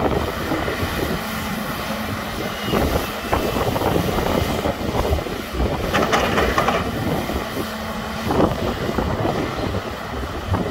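Volvo crawler excavator's diesel engine and hydraulics working steadily under load as the arm digs and swings bucketloads of earth.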